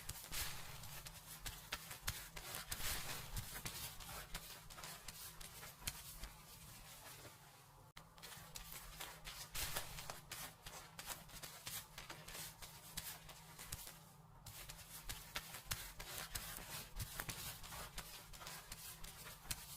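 Fingers scrubbing and rubbing through hair and scalp in close-up: a continuous rustling with many small crackles, easing off briefly twice.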